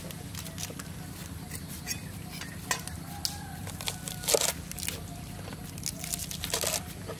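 Fresh leaves and vine stems being picked and stripped by hand: crisp rustling and snapping, loudest about four seconds in and again near the end, over a steady low hum.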